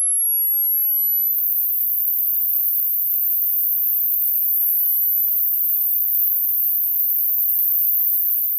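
Electronic sine test tone of a hearing-age test: a very high, thin whine climbing slowly in pitch toward the upper limit of human hearing, steady in loudness.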